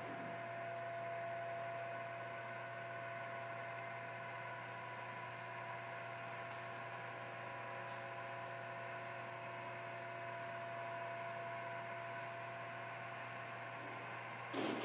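Steady electric motor hum with several fixed whining tones above it, holding an even pitch and level without starting, stopping or changing speed.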